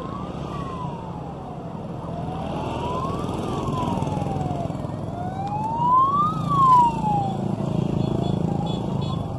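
A siren wailing slowly, its pitch rising and falling about every three seconds and loudest a little past the middle, over the running of passing motorcycle engines.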